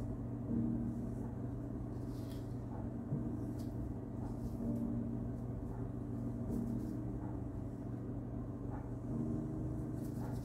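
A steady low mechanical hum with a few faint light taps.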